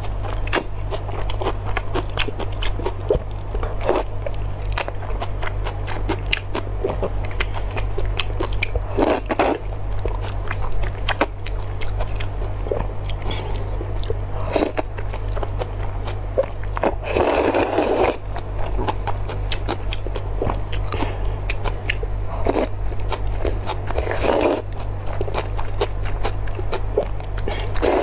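Close-miked eating sounds of a person slurping glass noodles and chewing. Several slurps, the longest about a second, come between dense wet clicks of chewing, over a steady low hum.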